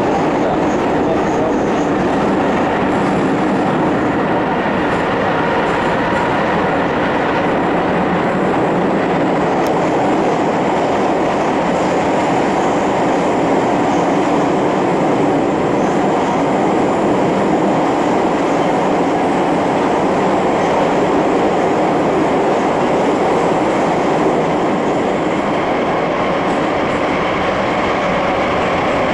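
Kyiv Metro train running, heard from inside the carriage: a steady, loud rumble and rush of wheels on rails that holds at an even level throughout.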